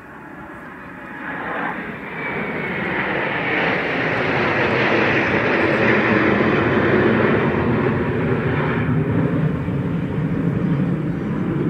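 Jet engine noise from a six-ship formation of twin-engine Sukhoi fighters flying over. It builds over the first few seconds, is loudest around the middle, and eases a little near the end.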